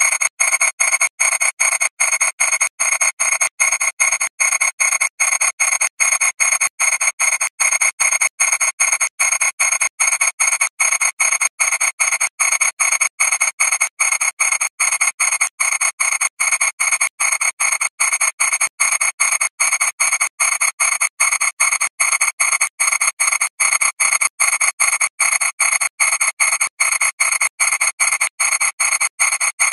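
Audio wrecked by thousands of repeated re-encodes: a harsh, buzzy wash of fixed high tones with no low end, chopped into even pulses about three times a second.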